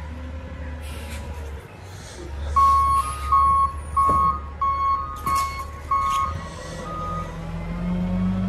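A truck's backup alarm beeps about eight times in a row, starting a few seconds in. A truck engine runs low underneath and rises in pitch near the end, with a few sharp knocks along the way.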